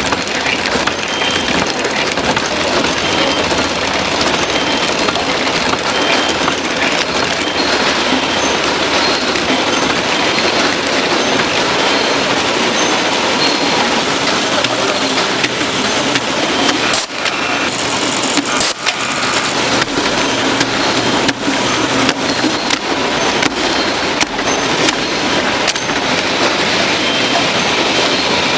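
Food-factory production machinery running: a steady, dense clatter with many small clicks, with two brief dips about two-thirds of the way in.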